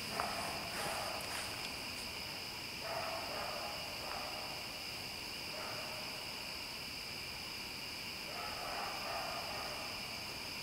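Night chorus of crickets and other insects: a continuous high trilling at two steady pitches, with a few faint lower sounds coming and going.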